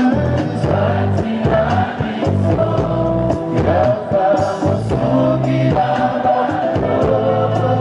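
Congolese gospel music: a choir of voices singing over a band with a steady bass line and a regular drum beat.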